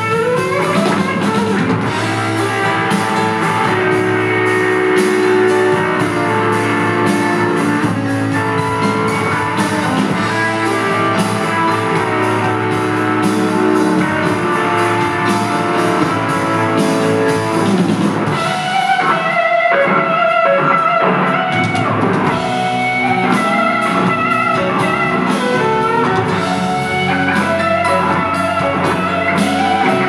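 Live rock band playing an instrumental stretch led by a Telecaster electric guitar, with drums, bass and keyboard behind it; the guitar opens with a rising bend. Just past the middle the band drops back for a few seconds, then comes in fully again.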